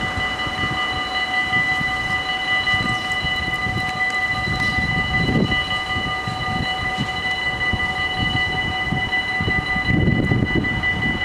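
Dutch level-crossing warning bells ringing as one steady, multi-tone ring while the half-barriers lower. The ringing stops near the end, once the barriers are down, over a low rumbling background.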